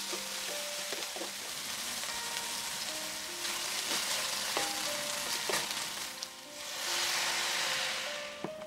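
Bacon, green onion and chili sizzling in a hot cast-iron skillet as a wooden spatula stirs and scrapes them. About seven seconds in, a louder, sharper hiss rises for a second or so as water hits the hot pan, then dies down.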